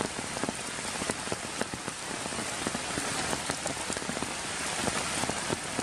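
Steady rain falling on wet ground and puddles, with many separate drop hits ticking throughout.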